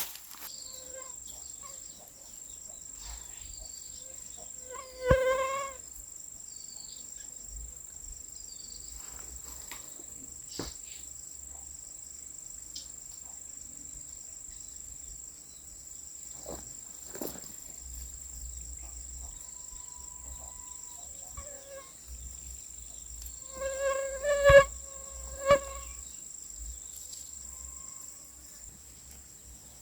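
Steady high-pitched drone of crickets or other singing insects. It is broken by a few short, pitched calls, one about five seconds in and a louder group of two or three near the end.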